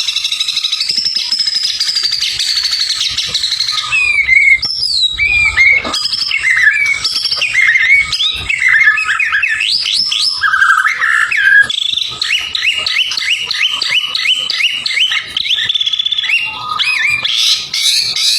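White-rumped shama (murai batu) in full song: a buzzy trill for about four seconds, then varied loud whistled phrases sweeping up and down, then a run of quick repeated rising notes, about three a second.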